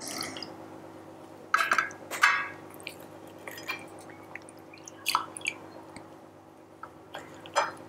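Coffee dripping and splashing as savoiardi (ladyfingers) are dipped one at a time into a glass bowl of coffee: a handful of short, separate drips and soft splashes, a second or so apart.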